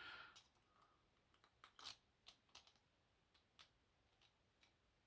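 Near silence with a few faint, light clicks and taps of small objects being handled, the clearest about two seconds in.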